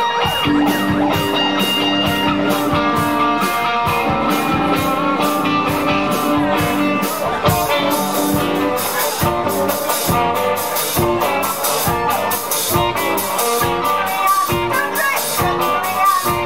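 Live rock band playing: electric guitars, bass and drums. Held guitar and bass notes fill the first half, then a steady drum beat comes in at about two hits a second.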